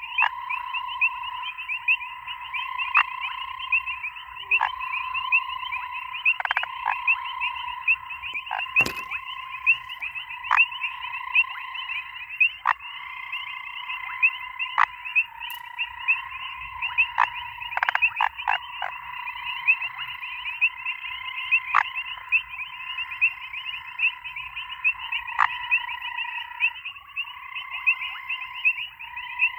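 Grey foam-nest tree frogs (Chiromantis xerampelina) calling in a continuous chorus of rapid pulsing trills, with sharp clicking notes standing out every second or two.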